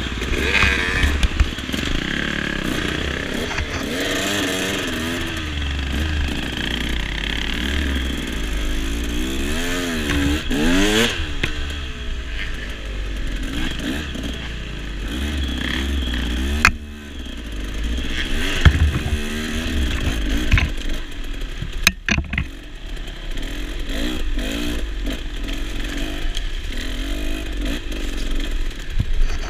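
Dirt bike engines running through a trail ride, the nearest one rising and falling in pitch as it is revved and ridden over rough ground. A few sharp knocks and clatter from the bike come in the second half.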